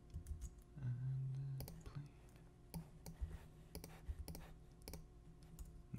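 Scattered computer mouse and keyboard clicks as the software is worked, with a short low hum about a second in.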